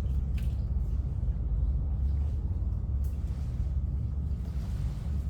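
Steady low rumble on the camera's microphone as it is carried along on a walk, with a couple of faint knocks.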